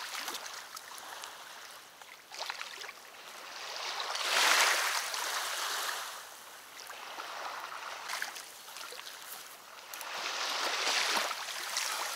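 Water washing and splashing at the river's edge in slow swells, the loudest about four seconds in and another near ten seconds.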